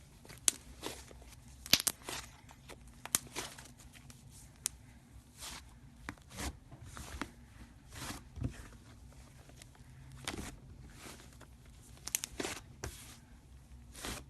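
Fluffy slime being squished, stretched and poked by hand: irregular sticky clicks, pops and short crackly tearing sounds.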